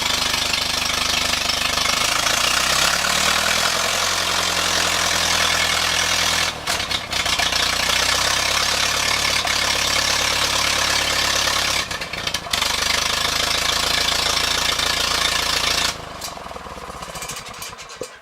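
Ferguson TEA 20 tractor's four-cylinder petrol engine running, with a popping sound coming back up through the air cleaner that the owner suspects comes from the carburettor or the governor setup. Twice the sound briefly dips, and about three-quarters of the way through it drops to a much quieter, pulsing running.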